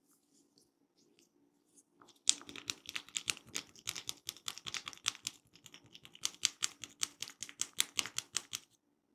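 A barber's hands working an oiled head in a head massage, making a fast run of crisp taps and clicks, several a second, that starts a couple of seconds in and stops shortly before the end.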